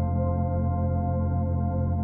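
Calm ambient background music: sustained, slowly changing synthesizer-like tones over a steady low drone.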